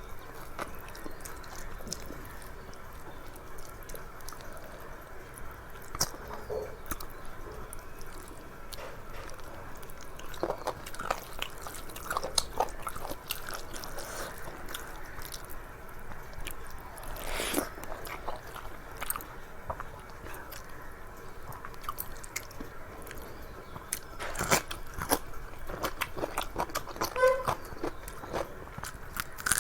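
Close-up eating sounds of a person chewing and biting a rice-and-curry meal, with many short, irregular crunches and wet mouth clicks.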